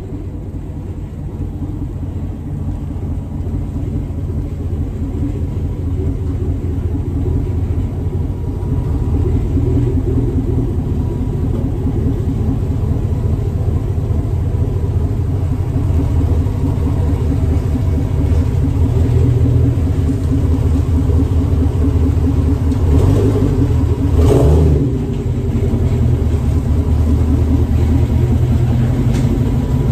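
Car driving on the road: steady low engine and road rumble heard from inside the cabin, growing louder over the first ten seconds or so as it picks up speed, with a brief louder swell about 24 seconds in.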